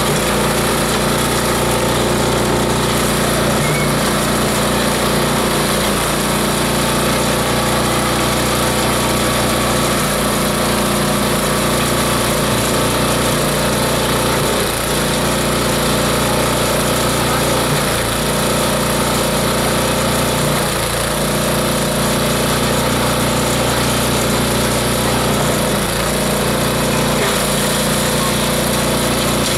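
Multi-blade chopper/shredder running steadily while grass and fibrous plant material are fed into it: an even mechanical drone with a steady hum that does not let up.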